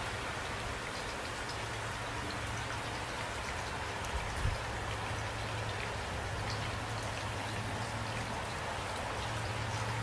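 Steady rain falling, a continuous hiss with scattered individual drop ticks. A brief low thud comes about four and a half seconds in.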